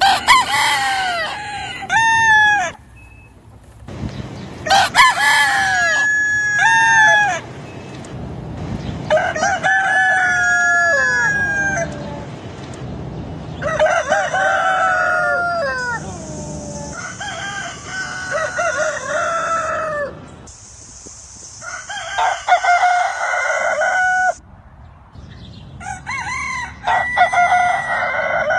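Roosters crowing, one crow after another with short pauses between, about six crows in all.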